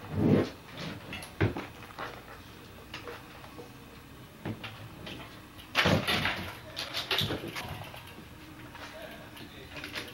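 Bike Friday folding bicycle being folded by hand: a series of clunks and knocks from the frame and its parts. The loudest knocks come about six seconds in, followed by lighter clicks and rattles.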